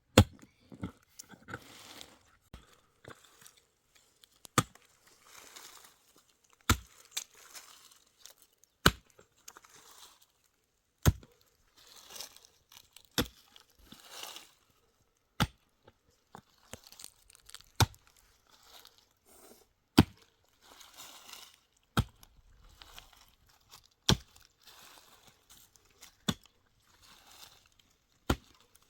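A hand tool striking hard at a steady pace, about one sharp blow every two seconds, with crunching and scraping between blows, like chopping or digging.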